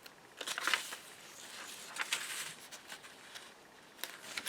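Paper rustling and sliding as the pages, envelopes and cards of a handmade paper journal are handled, in a few short bursts, the strongest about half a second in and about two seconds in.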